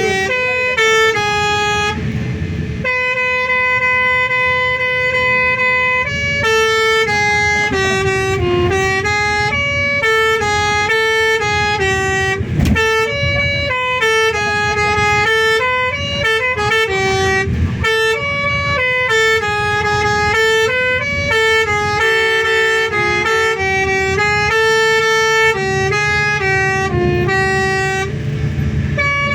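An Indonesian bus's telolet horn, a multi-tone air horn, playing a long melody of stepping notes over a low engine rumble.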